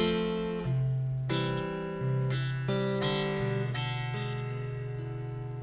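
Guitar playing the opening of a slow song. Chords are struck one after another, roughly one a second with a few quicker, and each is left to ring out.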